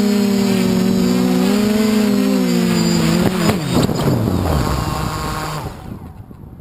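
DJI F450 quadcopter's electric motors and 8-inch propellers whining at a steady pitch. A few knocks come about three and a half seconds in, then the motors spool down, the whine falling in pitch and fading out.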